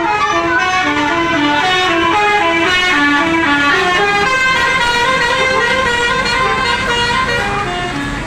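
Bus telolet melody horn of the Basuri V3 type playing a quick tune of short stepped notes, a new note about every quarter second. The notes thin out and grow fainter in the second half.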